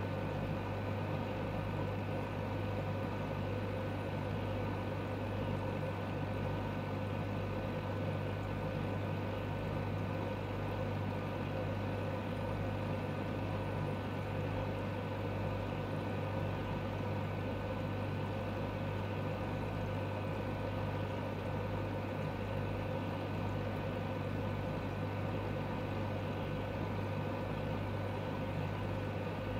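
Steady low electric hum with fainter higher tones over it, typical of an aquarium air pump or filter motor running.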